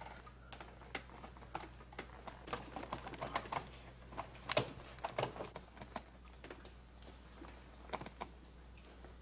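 Scattered irregular clicks and knocks, a few per second, with some louder ones about four and a half and eight seconds in.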